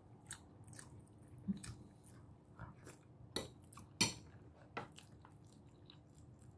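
Close-up mouth sounds of a person eating by hand: chewing, with scattered wet smacks and clicks as fingers are sucked clean, the loudest about four seconds in.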